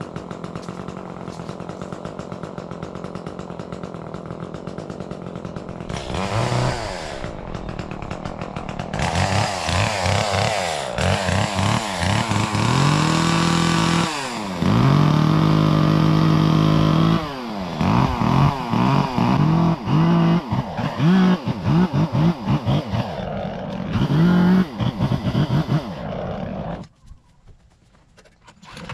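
Small gas engine of a chipper shredder running, then louder, its speed repeatedly dipping and recovering as it takes load while material is fed in. It cuts out to near silence near the end.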